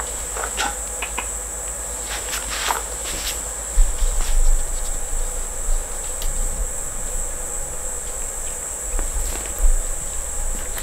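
A cat chewing freeze-dried green-lipped mussel treats gives scattered faint crunching clicks, a few louder ones about four seconds in and near the end. Under them runs a steady high-pitched whine with a low hum.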